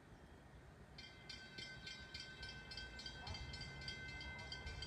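A train's bell starts ringing about a second in, struck about three times a second. Under it, the low rumble of an approaching train grows.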